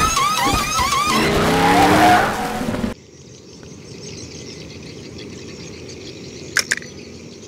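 Animated race car's engine revving up with a rising whine over tire-skid noise, cut off suddenly about three seconds in. Then a quiet background with a brief sharp double click near the end.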